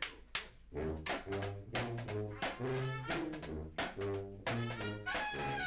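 Brass music: a few sharp percussive hits at first, then a low brass line of short notes comes in about a second in, and higher horns join near the end.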